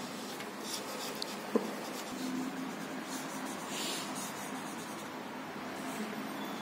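Felt-tip marker scratching across drawing paper in short strokes, with one sharp click about a second and a half in.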